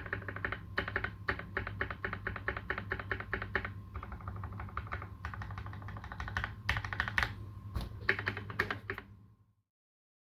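Typing on a Space65 custom mechanical keyboard with lubed Tealios v2 linear switches and PBT keycaps: rapid, even keystrokes with a few heavier strikes, stopping abruptly about nine seconds in.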